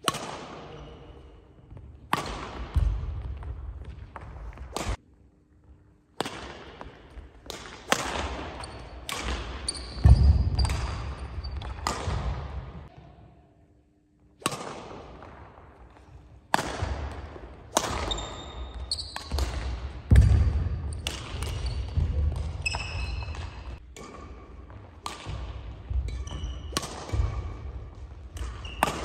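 Badminton rallies: rackets striking a shuttlecock again and again, each sharp hit ringing on in a large, echoing sports hall, with players' footsteps thudding and shoes squeaking on the wooden court. The play stops briefly about halfway, between rallies.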